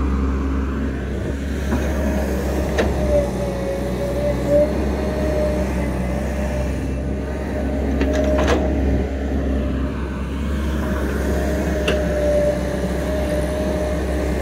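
XCMG XE135B hydraulic excavator working soil: its diesel engine running steadily under load with a steady whine over it, and a few sharp knocks as the bucket digs and moves.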